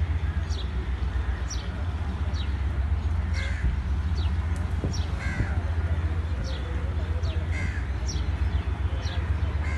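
Crows cawing a few times, among short, sharp, falling high-pitched bird calls that repeat about once a second, over a steady low rumble.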